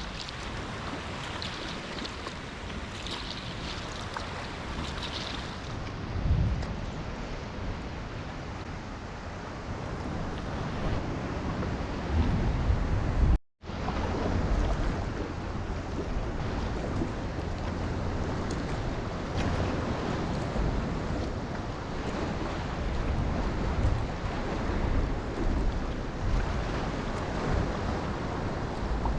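Ocean swell washing against sea-cave rock, with low surges of water and wind buffeting the microphone. About halfway through the sound cuts out for a moment and then resumes.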